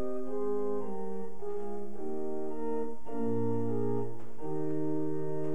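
Organ playing slow sustained chords over a bass line, the chords changing every second or so, then settling on one long held chord near the end.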